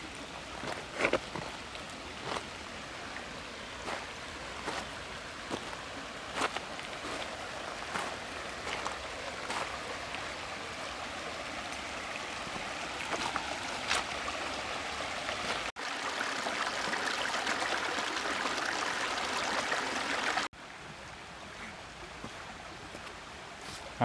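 A shallow creek running over rocks, with footsteps knocking on loose stones about once a second through the first part. Past the middle the water abruptly gets louder for about five seconds, as a small cascade close by, then drops back suddenly to a softer flow.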